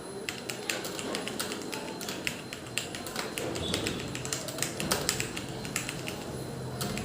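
Rapid, irregular key clicks of someone typing on a computer keyboard.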